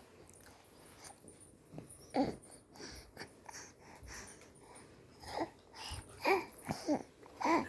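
A baby making a series of short, breathy vocal noises and little squeaks, about half a dozen spread over several seconds, the loudest about two seconds in and near the end.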